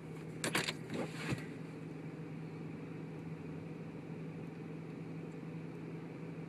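Steady low hum of a car idling, heard inside the cabin, with a few short, sharp clicks and knocks between about half a second and a second and a half in.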